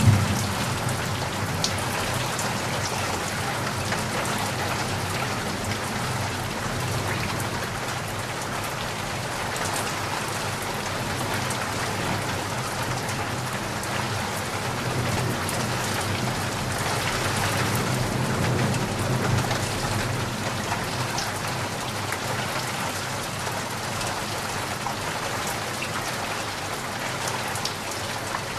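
Rain falling steadily: a dense, even hiss of drops with a low rumble underneath. It swells slightly about two-thirds of the way through.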